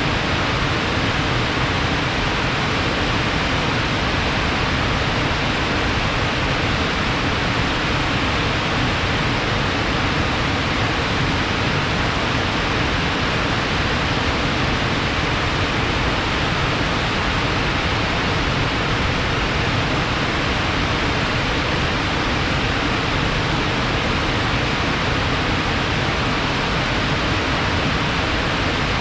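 Water flowing fast and heavy after rain, a steady, unbroken rush.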